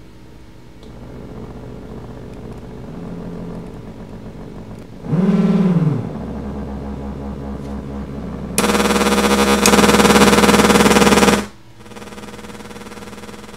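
Zapper audio-video synthesizer putting out buzzy electronic tones: a low drone, a quick swoop of pitch up and back down about five seconds in, then a loud, harsh, noisy blast of about three seconds before it settles back to a steady buzz.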